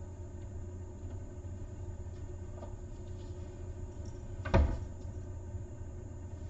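A cabinet door banging shut once, a sharp knock about four and a half seconds in, over a steady low hum with a few faint clicks.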